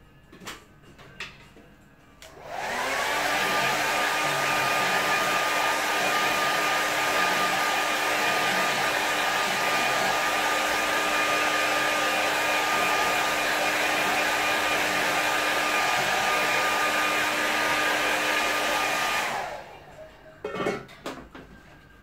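Hair dryer switched on, its pitch rising briefly as it comes up to speed, then blowing steadily with a steady whine while drying a wet watercolour painting. It is switched off near the end, followed by a couple of short knocks.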